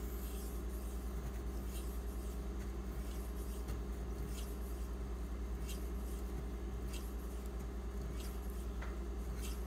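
Knife blade stroked across a wet 6000-grit Imanishi waterstone: faint scratchy swishes roughly once a second. Under the strokes runs a steady low hum.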